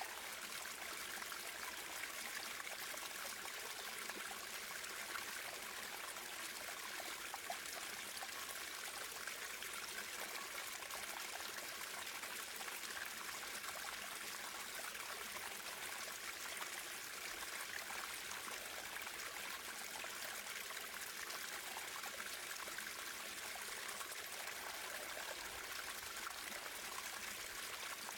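Running water of a stream, a steady, even babbling and trickling.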